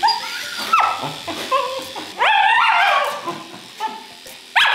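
Cockapoo barking in a series of high, yelping barks that rise and fall in pitch, the longest and loudest about two seconds in and another sharp one near the end: a nervous dog protesting at being handled for grooming.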